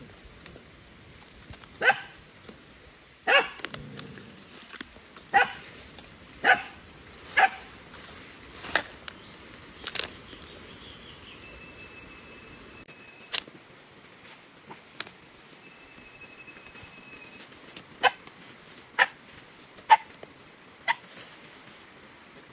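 Dog barking: about a dozen short, separate barks at irregular intervals.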